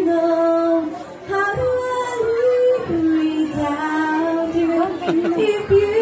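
A young female singer holds long, sustained notes of a love ballad over backing music, amplified through a loudspeaker PA.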